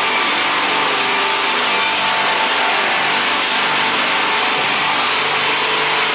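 GP-630 slab-processing sawing machine running, a loud, steady machine noise with an even hum in it.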